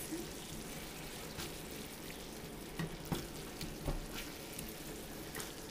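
Spinach and artichoke hearts sizzling in butter in a stainless pan as a wooden spoon stirs them, with a few light knocks of the spoon against the pan around the middle.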